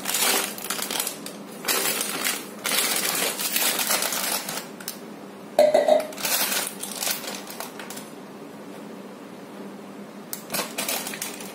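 Plastic food pouch crinkling as it is handled and scooped from, in loud rustling spells over the first few seconds. A metal spoon clinks once about halfway through, and the handling goes quieter toward the end.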